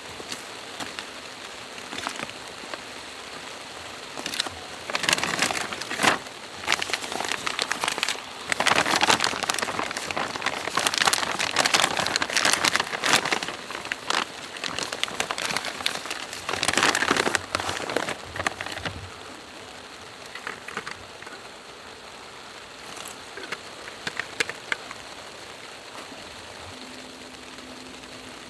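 Steady rain falling, with a louder stretch of dense crackling, crinkly noise from about five to nineteen seconds in.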